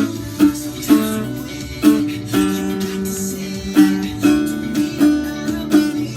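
Acoustic guitar strumming chords, mostly about two strokes a second, with one chord left ringing near the middle; no singing.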